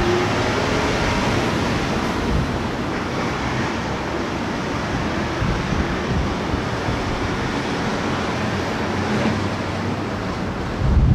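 Wind buffeting the microphone as a steady, uneven low rumble over a broad wash of sea noise, with a stronger gust near the end.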